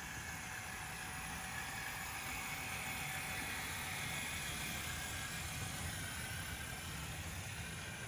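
LEGO 1:48-scale model of the Union Pacific 8080 locomotive running on plastic LEGO track: its electric train motors whir steadily while the wheels rumble over the track.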